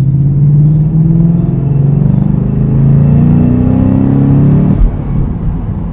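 2017 Mustang GT's 5.0 Coyote V8 with a Ford Performance cat-back exhaust (a Borla S-Type with a resonator-less X-pipe), heard from inside the cabin while accelerating. The exhaust note climbs steadily in pitch for about five seconds, then drops away abruptly near the end with a brief low thump.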